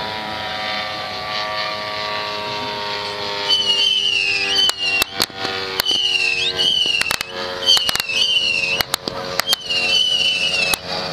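Model aircraft engines droning steadily. About three and a half seconds in, a rapid string of sharp pyrotechnic bangs begins, along with a high wavering whistle that repeats roughly every one and a half seconds.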